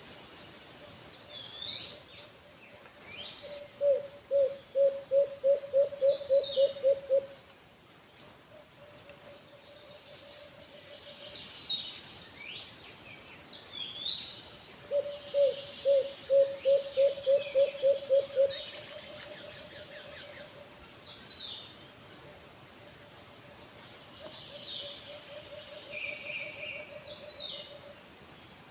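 A wild dove (alimukon) calling in two quick runs of about a dozen low cooing notes, with softer low notes between them. Small birds chirp high throughout, and a steady high insect buzz starts partway through.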